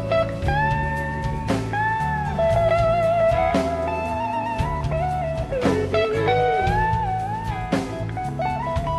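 Live blues-rock band playing an instrumental passage: an electric guitar lead of held notes that glide and waver in pitch, over bass guitar and a drum kit.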